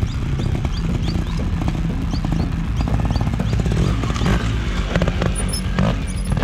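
Trials motorcycle engine running at low revs as the bike crawls through rocks, with the throttle opened a few times from about four seconds in as it climbs over a boulder.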